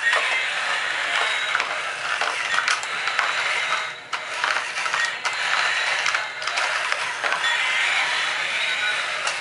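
Battery-operated toy dinosaur's gear motor running, a continuous clatter of small plastic gears, with two brief breaks about four and six seconds in.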